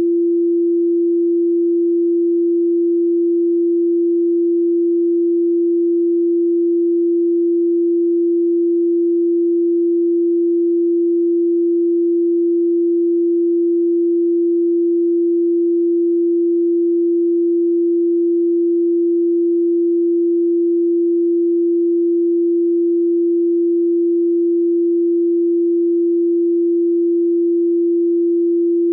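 A single pure sine tone at 341.3 Hz, held steady at one pitch and one loudness throughout.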